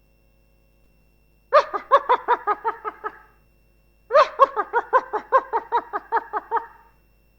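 Laughter sound effect in a very high-pitched voice: two quick runs of rapid "ha-ha-ha" syllables, each dropping slightly in pitch, starting about one and a half seconds in, the second run longer.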